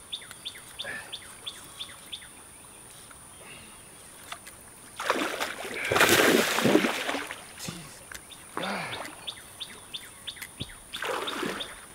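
Hooked alligator gar thrashing at the water's surface near the bank: a big splash about five seconds in, lasting a couple of seconds, then two shorter splashes.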